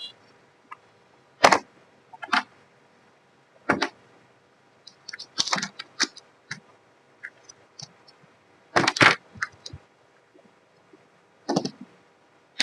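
Handling noises while unboxing earbuds: sharp clicks and short scrapes of the box and earbud case, one every second or two, with quiet between.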